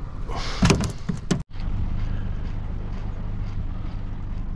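Steady low engine hum, with a short clatter of knocks about a second in and a brief dropout to silence just after.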